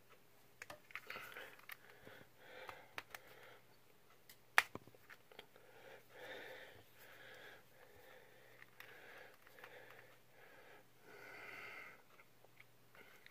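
Heavy breathing, repeated loud nose and mouth breaths from a man straining with his hands, with small plastic clicks from a press-and-turn child-resistant bottle cap being worked. One sharp click about four and a half seconds in is the loudest sound.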